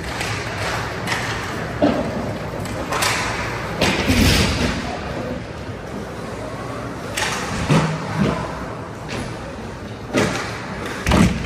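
Ice hockey play in an arena: several thuds and bangs as the puck and players hit the rink boards, the loudest a deep thud about four seconds in.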